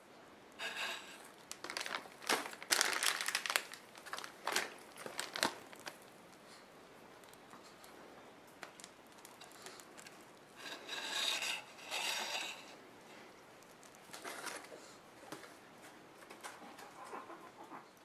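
Plastic piping bag crinkling and rustling in the hands as it is handled and squeezed. It comes in irregular bursts, the loudest a few seconds in and again about two-thirds of the way through.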